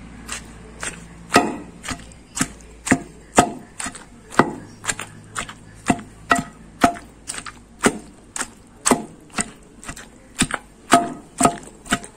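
Wooden pestle pounding green chillies and salt in a stone mortar, a steady rhythm of about two knocks a second.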